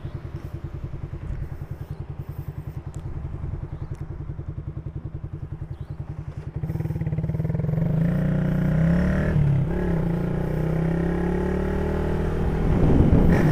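Motorcycle engine running at low speed with an even, fast throbbing pulse. About halfway through it gets louder as the throttle opens, and its pitch rises and falls as the bike accelerates.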